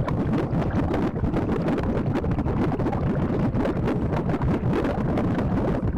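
Continuous churning, bubbling water noise, a steady underwater rumble.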